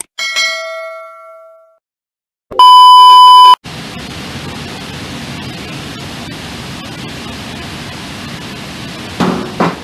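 A notification bell chime rings and fades, followed by a loud steady electronic beep lasting about a second. After that comes a steady hiss of workshop background noise, with a couple of brief voice sounds near the end.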